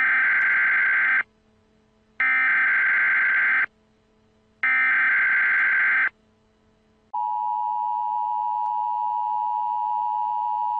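Emergency Alert System tones: three short bursts of digital header data, each just over a second long with about a second of silence between, then about seven seconds in, the steady two-tone EAS attention signal starts and holds.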